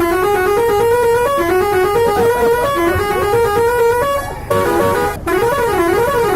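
A bus's musical horn playing a tune of short stepped notes. After a brief break about five seconds in, it switches to a warbling tone that swings up and down in pitch several times a second.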